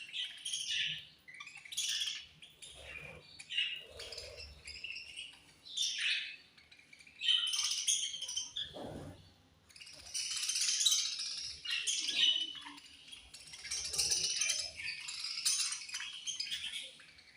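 Budgerigars chirping: many short, overlapping high-pitched calls in irregular bursts, the chatter growing busier about ten seconds in.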